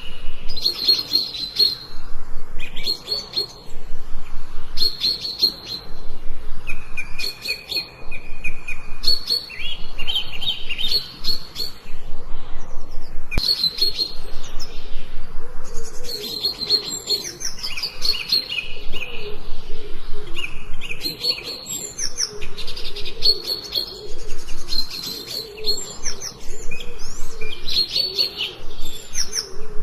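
Forest songbirds chirping and singing in quick, repeated high phrases with almost no pause. From about halfway a fainter, lower wavering call runs underneath.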